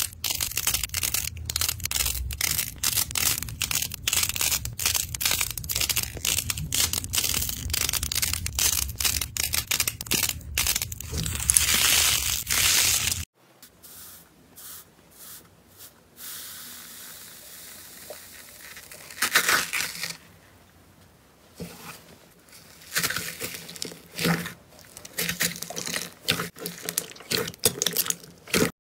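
Crunchy slime squeezed and pulled by hand, a dense run of crackling clicks. About thirteen seconds in it cuts to softer, scattered crackles and squishes as a fluffy foam slime is pressed.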